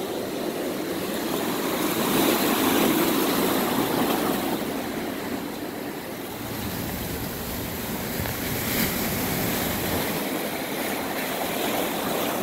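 Ocean surf washing among shoreline rocks: a steady rush of water that swells and eases a couple of times.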